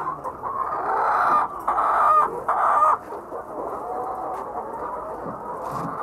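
Chickens clucking and calling. Several loud calls come in the first three seconds, then quieter clucking continues.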